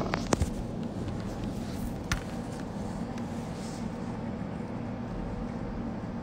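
Steady low room hum, with a few sharp clicks near the start and a single click about two seconds in, typical of a handheld phone being gripped and shifted.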